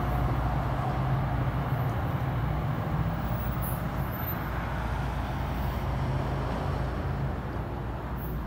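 NJ Transit diesel train pulling away: a steady low engine hum and rumble that fades as it moves off, the upper hum dropping out near the end.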